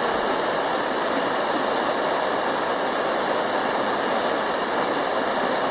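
Steady radio static: an even hiss with no tone or voice in it.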